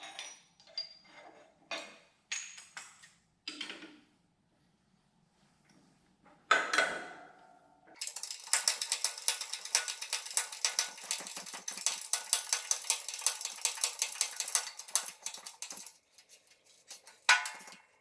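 Metal tools and parts clinking, then a ratchet wrench clicking fast and evenly for about eight seconds while a bearing separator is tightened under a transmission gear and bearing. A single metal clank comes near the end.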